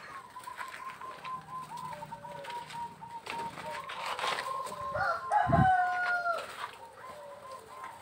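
Zebra doves (perkutut) calling in an aviary, a thin wavering call that carries on steadily. About five seconds in, a louder, longer bird call comes in and falls away at its end.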